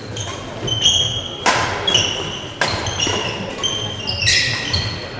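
Badminton doubles rally: sharp racket-on-shuttlecock hits roughly every second, with sports shoes squeaking on the court floor and footfalls between shots.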